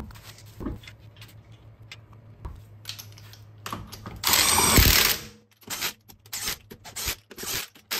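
Cordless impact wrench hammering a wheel's lug nut tight in one burst of about a second, four seconds in, followed by a string of short clicks and brief bursts as the nuts are snugged.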